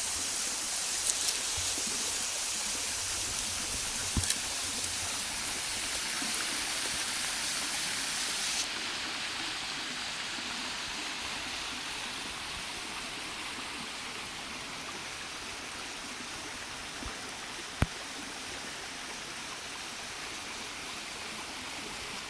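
Small waterfall running into a pool at low flow after a dry summer: a steady rush of falling water that softens slightly about nine seconds in. A few brief sharp clicks stand out, the loudest near the end.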